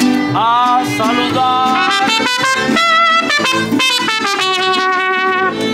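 Live mariachi band playing, trumpets out front with held notes over guitars and violin.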